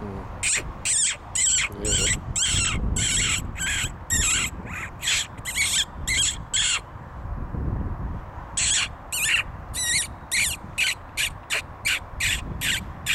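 Rapid, high-pitched squeaks from a fox call, imitating a small animal in distress to lure a fox in. The squeaks come in two runs of about two a second, with a short pause midway and a quicker second run.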